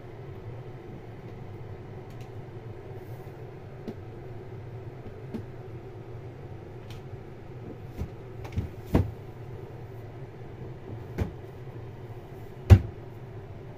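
A few dull knocks and bumps over a steady low hum: a small cluster a little past the middle, another knock shortly after, and the loudest one near the end.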